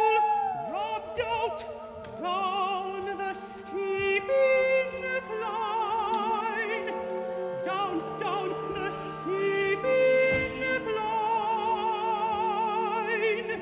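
Operatic singing with wide vibrato, several voices overlapping, over steady held low notes from the orchestra.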